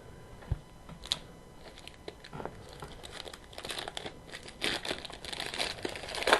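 Crinkling and tearing of a trading-card pack wrapper as it is opened and handled, sparse at first and growing denser and louder over the last couple of seconds.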